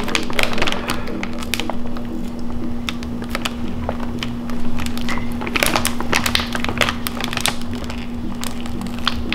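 A foil snack bag crinkling and crackling in short bursts as it is slowly pulled open, thickest a little past the middle, over background music with a steady held note.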